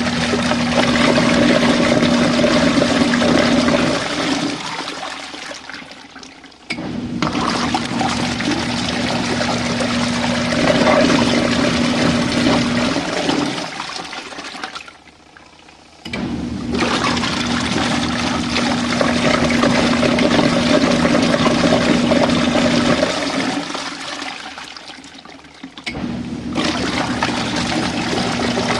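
Compact RV washing machine agitating its tub of rinse water: a steady motor hum over churning, sloshing water. It runs for several seconds, slows and dies away, then starts up again abruptly, about every ten seconds, three times over.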